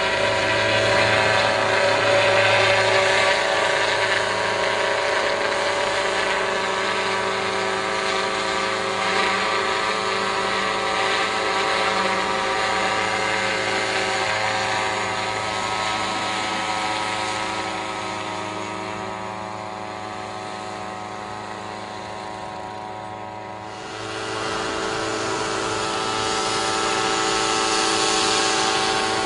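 A motor running steadily with a whine made of many even tones. It fades somewhat past the middle, then comes back up abruptly near the end.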